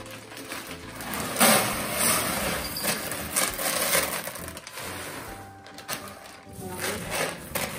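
Dry cat litter pellets poured from a bag into a plastic litter-box tray: a dense, continuous pattering that starts about a second and a half in, is loudest for the next few seconds, then thins out.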